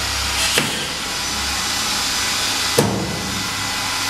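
Electric grinding machine running, its motorized grinding head travelling along steel rails with a steady whirring hiss. There is a light clack about half a second in and a louder knock at about three seconds.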